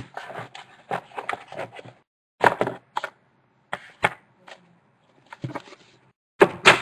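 Hard plastic card cases and cards being handled and set down on a wooden tabletop: a series of sharp clicks and knocks at irregular intervals, loudest as a pair near the end.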